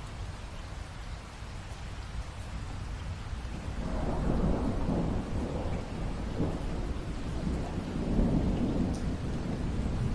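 Steady rainfall with a low rumble of thunder that builds about four seconds in and keeps rolling to the end.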